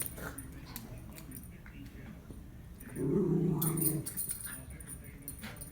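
Miniature Schnauzer growling in play, with one loud low growl about three seconds in lasting about a second and quieter growling near the start. Scattered knocks come from the rubber Kong toy being tossed about.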